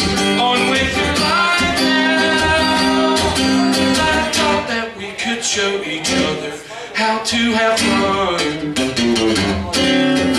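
Acoustic guitar strummed in a steady rhythm, chords ringing between strokes, a little softer in the second half.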